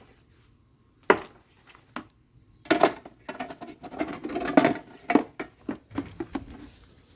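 Scrap pieces from a box fan, the cut low-grade wire, being handled and set down in a run of light clattering knocks. There is one sharp knock about a second in, then clusters of rattling knocks a little later.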